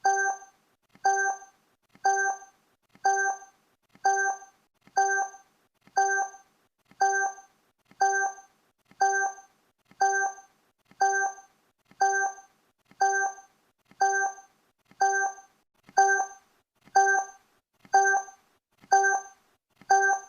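Countdown timer sound effect: a short electronic blip once a second, each a small click followed by a brief pitched tone, evenly spaced, a little louder over the last few seconds.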